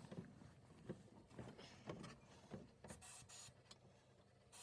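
Faint knocks from handling inside a sandblasting cabinet, then a few short weak hisses of air from the blast gun, running on low pressure because the air compressor is not switched on.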